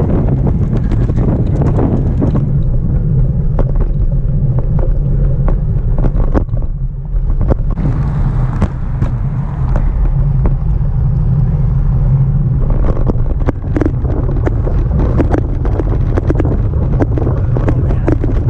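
Wind buffeting a strap-mounted GoPro's microphone on a moving road bicycle: a steady heavy rumble, broken by frequent short clicks and knocks.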